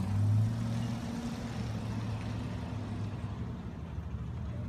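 A small utility vehicle's engine running steadily with a low hum, a little louder for the first half second.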